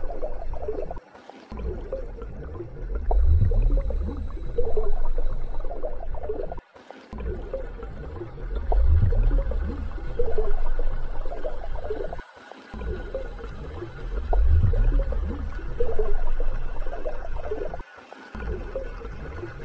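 A looped underwater ambience track: low rumbling swells with gurgling, repeating about every five and a half seconds, each repeat separated by a brief cut-out.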